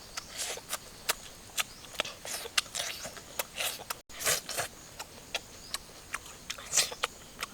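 Close-up eating sounds: irregular wet smacks and clicks from chewing, with short hissy slurps between them. The sound cuts out briefly about four seconds in.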